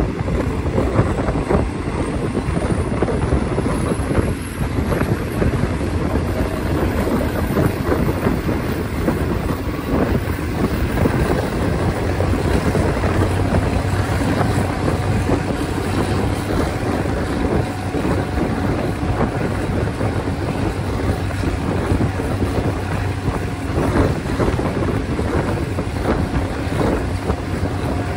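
Passenger train running at speed, heard from an open carriage window: a steady rush of wind buffeting the microphone over the train's running noise, with a continual rattle of small clicks from the wheels and coaches.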